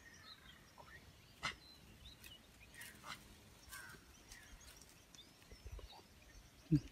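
Quiet outdoor ambience with scattered faint bird chirps and a few soft clicks, then a brief low sound just before the end, the loudest moment.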